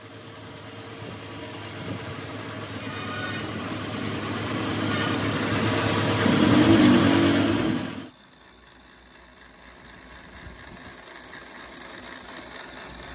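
Lathe-mounted tool-post grinder grinding the face of a tractor clutch plate, a loud hissing grind that builds over about eight seconds and cuts off abruptly. A quieter grinding and motor sound follows and slowly grows.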